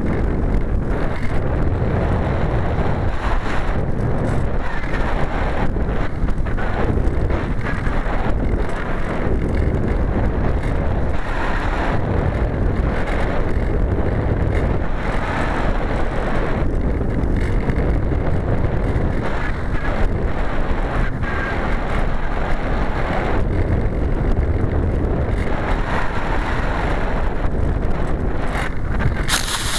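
Air rushing over the microphone of a keyfob camera riding on an Easystar RC model plane in flight, a loud steady rush with no clear pitch. Near the end, a brief loud hit as the plane touches down on the grass.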